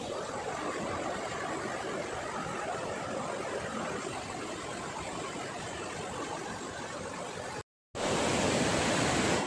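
Rocky mountain stream rushing over boulders: a steady rush of white water. Near the end the sound cuts out for a moment and comes back louder.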